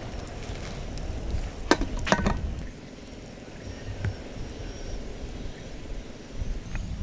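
Steady low wind rumble on the microphone, with a few sharp clinks of cookware about two seconds in.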